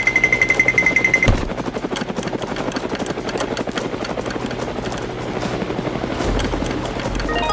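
A motor-driven machine running with a fast, even chopping beat of about ten beats a second. A steady high beep sounds over it for about the first second, and a low rumble swells in near the end.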